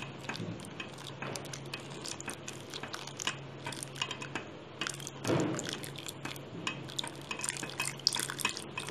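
Silicone spatula stirring hot milk in a non-stick pan while custard mixture is poured in, with liquid sloshing and many light clicks and scrapes against the pan over a low steady hum. One louder knock comes about five seconds in.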